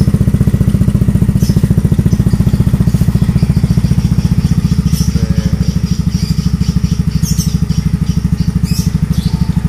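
Yamaha Nouvo Z's single-cylinder four-stroke engine idling steadily with an even, rapid pulse through an aftermarket R9 Misano slip-on silencer. The exhaust note is bassy and not too noisy.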